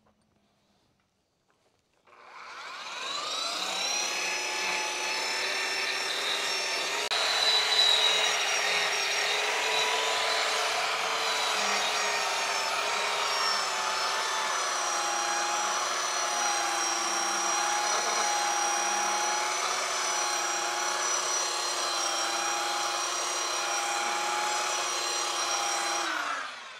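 A handheld electric power tool, most likely a sander, is working the rough black walnut mantel board. It starts about two seconds in and runs steadily, its pitch dipping slightly as it bears on the wood, then winds down near the end.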